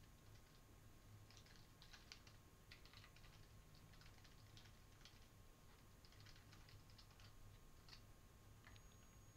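Faint typing on a computer keyboard: irregular keystroke clicks, several a second, over a low steady hum.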